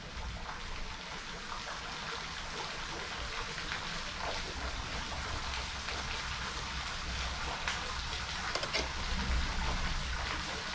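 Water pattering and trickling: a steady fine hiss scattered with light crackles, over a low rumble.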